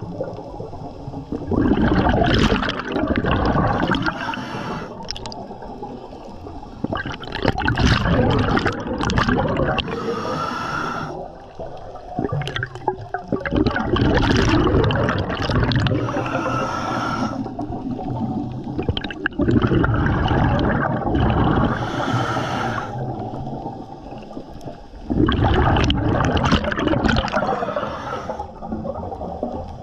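Scuba diver breathing through a regulator underwater: a hiss on each inhalation and a gurgling rush of exhaled bubbles about every six seconds.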